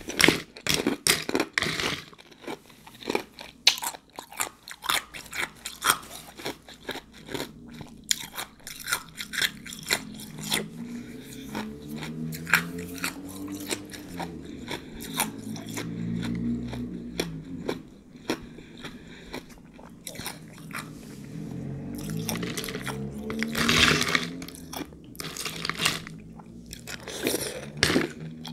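Close-up crunching and chewing of ice, with many sharp, irregular crunches. Through the middle stretch a faint, low, wavering pitched sound sits underneath.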